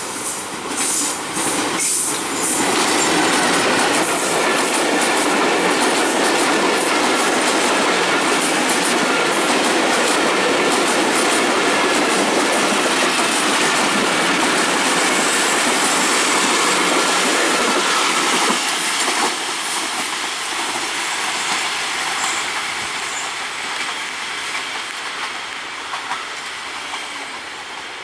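Diesel-hauled passenger train passing close, its coaches' wheels clattering over the rail joints with a faint steady wheel squeal. About two-thirds of the way through the loud passing ends, and the train fades as it pulls away.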